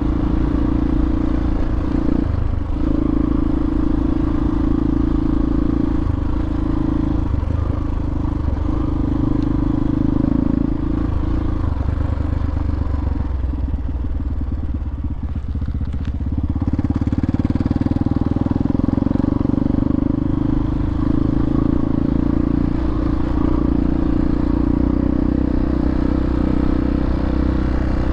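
Hawk 250 dual-sport motorcycle's single-cylinder engine running while being ridden. It eases off briefly about halfway through, then pulls steadily again.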